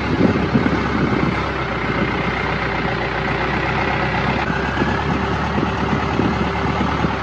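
Longtail boat's engine running steadily and loudly while under way, a dense, rattling drone.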